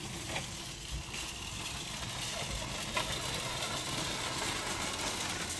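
Metal shopping cart rolling over a concrete sidewalk: a steady rolling rumble with a few light clacks.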